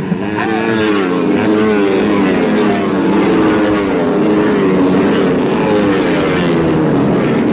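Several small racing motorcycles running hard through a corner and passing one after another, their overlapping engine notes rising and falling as they accelerate and shift.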